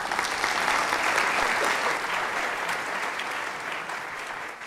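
Audience applauding at the end of a lecture, a dense steady clapping that starts suddenly and slowly dies away toward the end.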